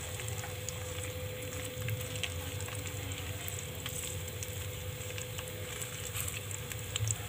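Sliced onions frying in hot oil in a metal pot: a steady sizzle with scattered pops and clicks while a ladle stirs them, over a low steady hum.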